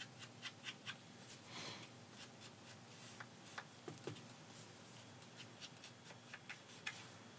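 Faint run of soft taps and scuffs as a small foam ink blending tool is dabbed along the edges of a paper tag to ink and age them, with light paper handling as the tag is turned over.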